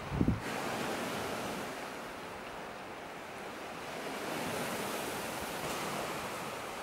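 Sea surf washing against a rocky shore: a steady rush of water that swells slightly about four seconds in. A brief low buffet of wind on the microphone right at the start.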